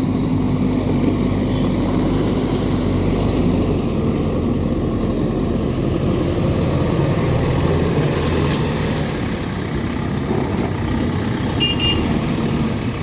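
Diesel engine of a JCB backhoe loader running steadily under work. A brief high-pitched tone sounds near the end.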